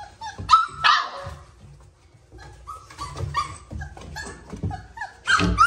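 Young Boerboel puppies making many short, high whimpering and yipping cries, with louder yelps about half a second in and again near the end, over some low bumps.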